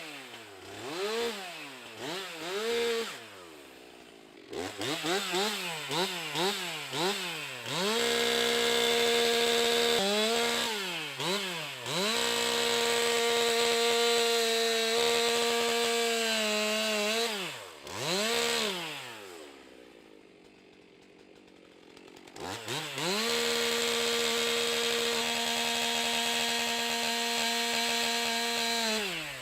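Stihl MS 362 C-M two-stroke chainsaw revved in quick blips and held at steady full throttle for several seconds at a time. It drops back to a quiet idle twice: a few seconds in and again about two-thirds through.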